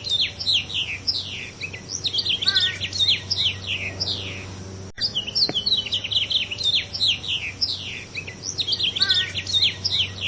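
Small songbirds chirping: quick high chirps that slide down in pitch, several a second, over a steady low hum. The same run of chirps repeats identically about halfway through, as in a looped recording.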